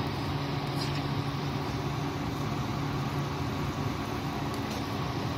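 Steady mechanical hum with a hiss, and a few faint soft scrapes of a spatula stirring noodles in a nonstick pan.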